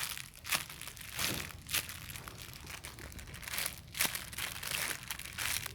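Irregular crinkling and rustling as a squishy toy is handled, a series of short scrapes and crackles.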